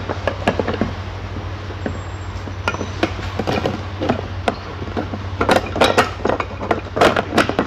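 Plastic clicks, knocks and clinks as the 300 ml plastic bowl and blade of a Cosmos FP-300 mini food processor are handled on a tabletop, coming thicker in two bunches in the second half.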